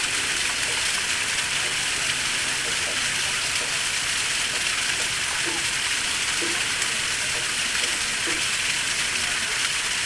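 Small waterfall splashing steadily: an even, unbroken rush of falling water.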